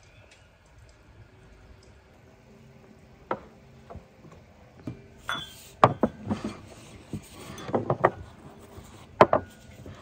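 Tableware knocking and clinking on a wooden table as a meal is served: plates, glasses and a metal serving tray set down and handled. Sharp separate knocks come from about three seconds in, more often in the second half, the loudest near the middle and again near the end.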